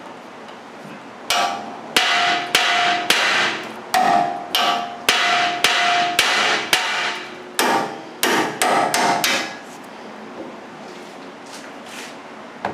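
A hammer striking the side of a steel steering knuckle over and over, about two blows a second for some eight seconds, each blow with a short metallic ring, to shock the tie rod end's tapered stud loose so it drops out of the knuckle.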